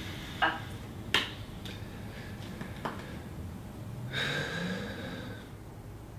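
A man's heavy breathing and sighs, with a few sharp clicks, the loudest about a second in, and a longer sigh near the end.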